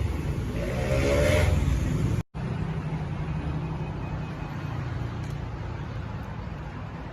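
Steady low rumble of a car on the move, engine and road noise, cut off for an instant about two seconds in and then running on.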